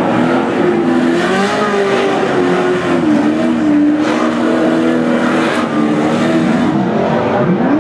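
Off-road racing truck engines revving hard on a dirt track. The pitch climbs and falls again and again as the trucks accelerate and slide through the turns.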